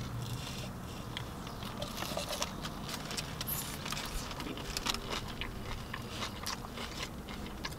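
Sub sandwiches being bitten into and chewed close to the microphone: faint, irregular wet mouth clicks and smacks, with small crinkles of the paper wrapping.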